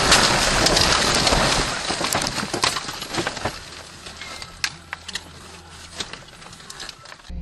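Car crashing through roadside bushes and small trees: a loud rush of branches scraping and breaking against the body and windshield, fading over a few seconds into scattered sharp snaps and crackles of twigs as the car comes to rest.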